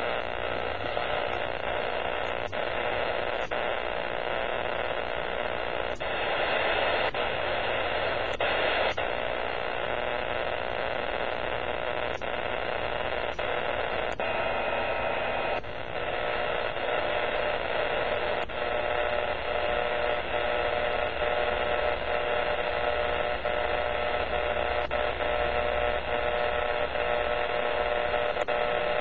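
Amateur radio receiver's audio full of power line noise: a steady rushing static with sharp clicks every second or two, and faint steady whistles coming through about two-thirds of the way in. It is the sign of power line interference swamping the ham bands.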